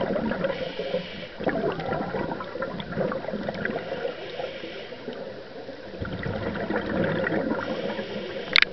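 Scuba regulator exhaust underwater: exhaled air bubbling and gurgling out in irregular bursts.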